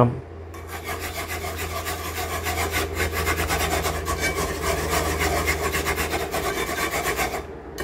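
Wire whisk scraping rapidly round a cast-iron skillet as it stirs thickening gravy: a fast, steady, rhythmic scraping that starts about half a second in and stops shortly before the end, over a low steady hum.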